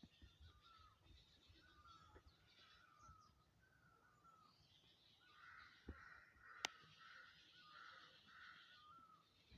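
Birds calling: one bird repeats a short call about once a second, with higher chirps above it. From about the middle, a run of harsher calls joins in. A single sharp click comes about two-thirds of the way through.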